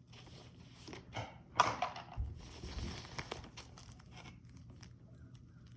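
Packaging being handled: crinkling and rustling with scattered clicks, and a sharper crackle about a second and a half in.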